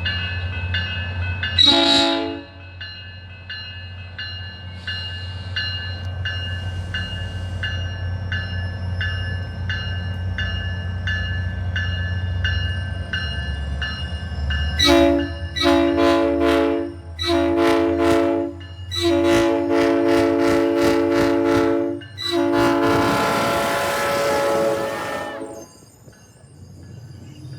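SunRail commuter train's multi-note air horn: one short blast about 2 seconds in, then from about 15 seconds in a string of blasts ending in a long one that fades out. Under it the locomotive's diesel engine runs with a steady low rumble, and between the blasts its bell rings at an even beat.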